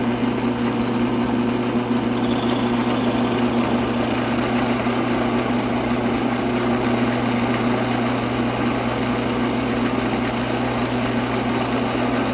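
Drill press motor running at a steady hum while its bit bores into a block of hard maple, the cutting noise continuous with no change in pitch.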